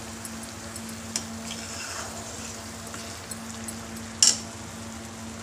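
Ground onion-tomato masala sizzling in oil in a black kadai as a spatula stirs it, with a few light clicks and one sharp clink about four seconds in. This is the bhuna stage: the paste is being fried down with a little water until the oil separates.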